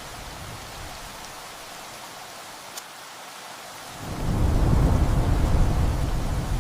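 Heavy rain falling steadily on a tin roof, with a deep rumble of thunder swelling about four seconds in.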